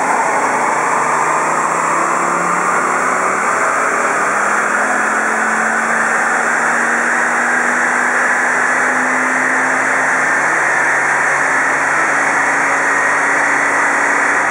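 Volvo S40 2.5T's turbocharged five-cylinder engine running under load on a chassis dynamometer, breathing through a 3-inch OBX racing exhaust, with a whine that climbs slowly and steadily in pitch throughout, as in a long dyno pull. A steady rush of air sits underneath.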